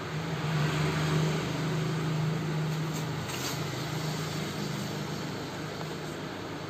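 Steady low mechanical hum with a hiss behind it.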